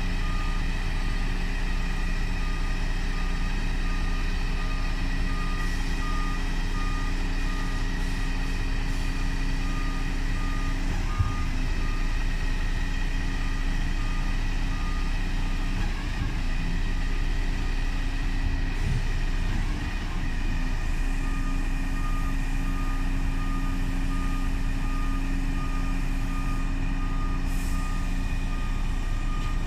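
Heavy truck's engine running steadily, powering the hydraulics as the side-tipping twin body on its cradle is lowered back to level, with an electronic warning beeper sounding about twice a second. A single sharp knock about eleven seconds in.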